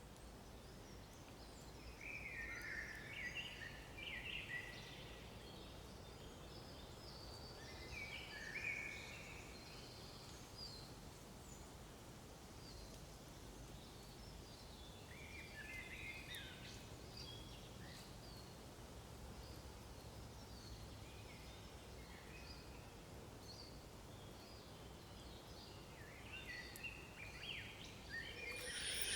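Bald eagle calling: several bursts of thin, quick, chittering chirps over a faint steady hiss.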